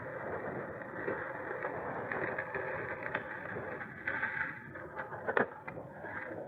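Electric mountain bike ride on a dirt trail: a steady rush of tyre and wind noise, with a few sharp knocks and rattles from the bike going over rough ground, one plain knock near the end.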